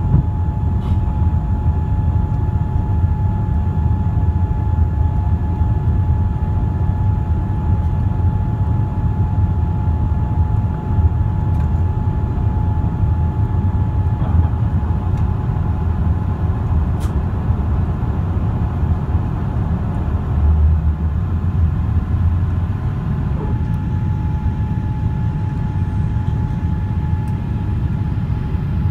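Steady cabin roar of a Boeing 787-8 Dreamliner in its climb after takeoff: engine and airflow noise, mostly a low rumble, with a steady whine running through it. A second, slightly higher whine comes in about halfway and cuts off suddenly a few seconds later.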